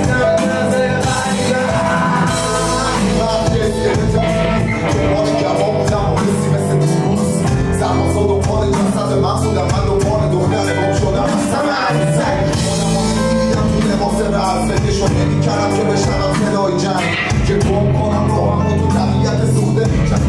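A live band rehearsing a song: electric bass, electronic keyboard and a steady beat, with a man singing into a microphone over the amplified mix.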